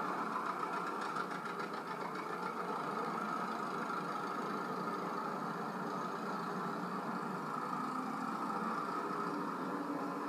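Old farm tractors' engines running as they drive past, played back through a TV speaker: a steady engine drone with hiss and no deep bass.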